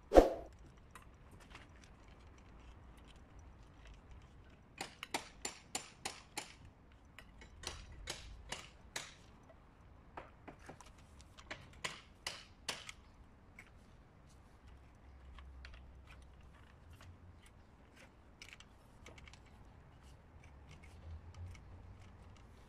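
Plastic pump-controller housing clicking and tapping as it is handled and screwed onto a water pump's outlet: a knock right at the start, then several quick runs of sharp clicks, about three or four a second.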